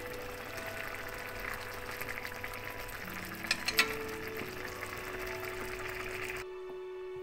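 Food sizzling and crackling in a hot pan, with a few sharper pops about halfway through, over background music; the sizzle stops near the end, leaving the music.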